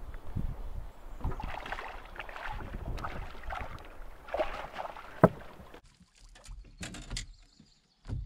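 Water splashing as a hooked fish thrashes at the surface beside a boat and is scooped into a landing net. A single sharp knock comes about five seconds in, followed by a few softer thuds as the net is handled in the boat.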